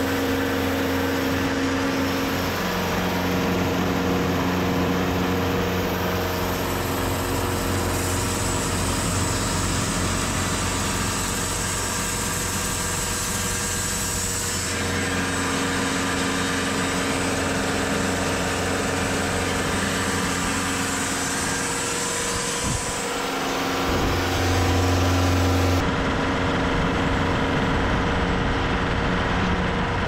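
TimberKing 2520 band sawmill running, its engine humming steadily. The pitch and tone shift a couple of times, with a deeper hum briefly strengthening near the end.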